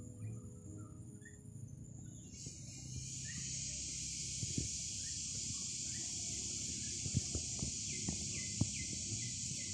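A steady outdoor chorus of insects that swells in a couple of seconds in and then holds, with a few short bird chirps and light clicks.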